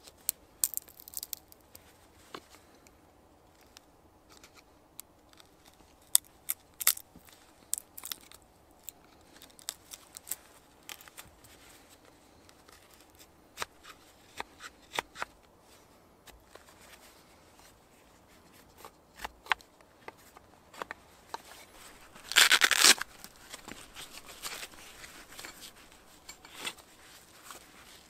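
Mora carving knife shaving a green-wood stick: scattered short, sharp scraping cuts, with one longer, louder rasp about three quarters of the way in.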